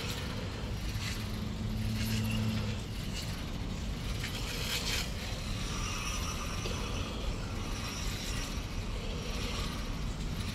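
Aerosol can of foaming coil cleaner hissing in spurts as it is sprayed onto an air-conditioning condenser's fins, over a steady outdoor background rumble, with a low hum about one to three seconds in.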